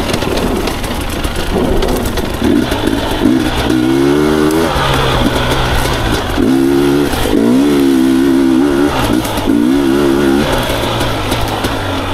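Husqvarna TE250i two-stroke enduro motorcycle engine being ridden, its revs climbing and dropping in several short bursts from about four seconds in over a lower running note.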